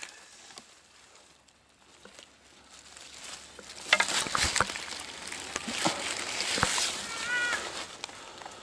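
Dry leaves and twigs rustling and crackling close by, with scattered sharp clicks, starting about four seconds in after a quiet start. A short high call sounds near the end.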